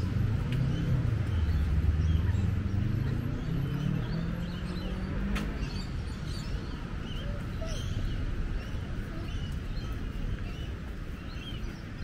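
A motor vehicle's engine rising in pitch as it accelerates past during the first half, over a steady low traffic rumble, with birds chirping throughout.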